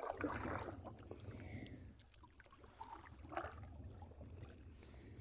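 Paddles dipping and water splashing alongside a small canoe-style boat being paddled, with a few separate stroke splashes over a faint low rumble.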